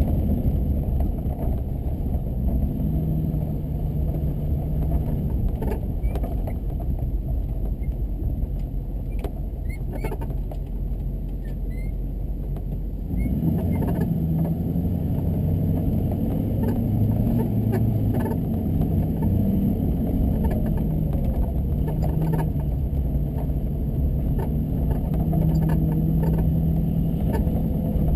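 A car driving, its engine and road noise running continuously, with the engine note rising and falling as it speeds up and slows. The sound gets louder about halfway through.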